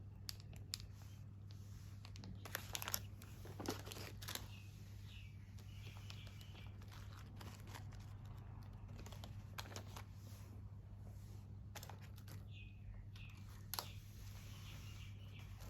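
Plastic snack packaging crinkling and rustling as it is handled, with scattered sharp clicks, busiest in the first few seconds and again near the end, over a steady low hum.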